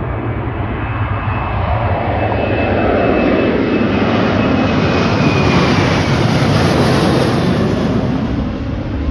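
Boeing 737-800's twin CFM56 turbofans at takeoff power as the jet goes past. The engine noise swells to its loudest a little past halfway, then starts to ease, with a faint falling whine running through it.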